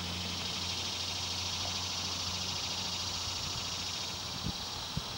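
A steady high-pitched buzzing chorus of insects. Under it is the low drone of a distant approaching diesel freight train, led by a GE ES40DC locomotive. A couple of low thumps come near the end.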